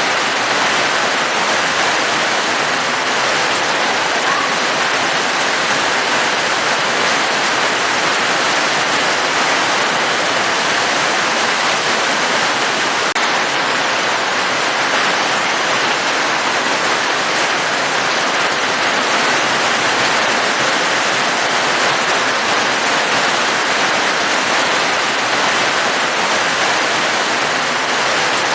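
Falling water: a steady, even hiss with no breaks and no single drops or other sounds standing out.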